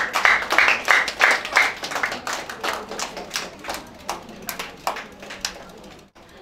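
Applause: a small group of hands clapping briskly at first, about three claps a second, then thinning into scattered claps that die away near the end.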